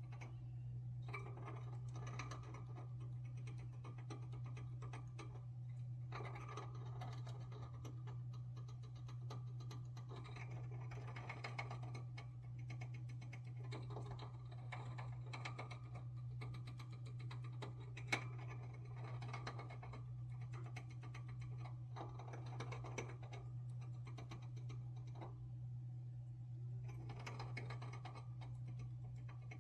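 A hamster gnawing with its teeth: rapid, fine, scratchy clicking and crunching in bouts with short pauses, and one sharper click a little past halfway. A steady low hum sits underneath.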